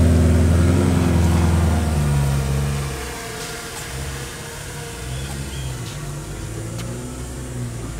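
Car engine running, loud for about the first three seconds, then quieter.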